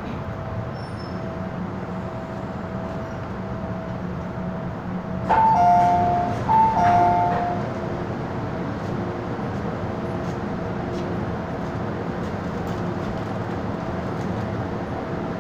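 MTR M-Train running through a tunnel, heard from inside the carriage: a steady rumble with a thin steady whine. About five seconds in, a loud two-note tone, high then lower, sounds twice.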